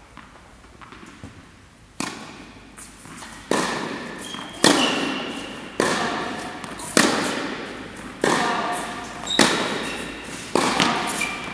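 A tennis rally on an indoor court: sharp hits of a tennis ball off the rackets and the court, roughly one every second and a quarter, starting about two seconds in, each echoing in the hall.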